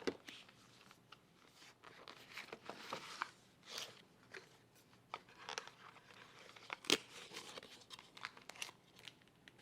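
Packaging of a CPU water block being opened by hand: cardboard and plastic crinkling, tearing and scraping in short irregular bursts, with a sharper click about seven seconds in.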